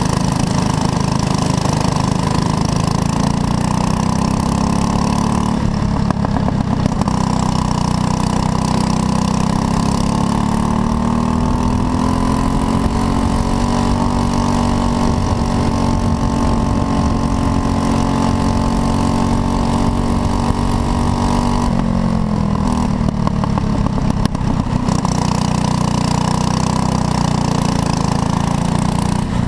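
Racing kart engine heard from on board, running hard: its pitch dips around six seconds in, climbs to a high, held note along a straight, then falls sharply about twenty-two seconds in as the revs come down before the next bend.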